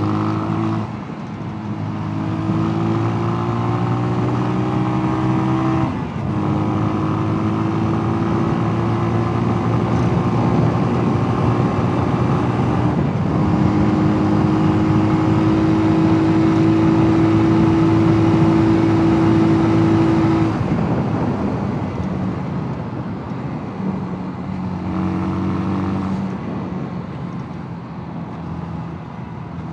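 Mash 250's single-cylinder engine pulling hard under way, shifting up three times in the first half with a short break in the engine note each time. It then holds steady high revs, drops off as the throttle closes about two-thirds of the way through, and rises briefly once more near the end.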